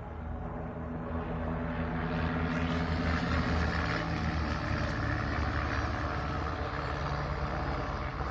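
Propeller-driven light aerobatic aircraft of a formation display team flying past. The engine drone grows louder about two seconds in and stays strong.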